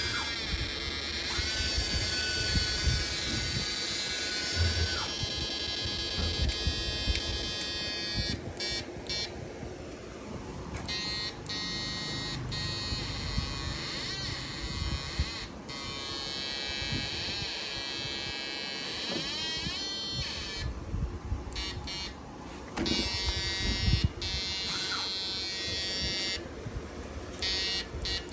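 Electric fish-stunner inverter running, giving off a steady high-pitched electronic buzz and whine made of many tones at once, cut briefly now and then.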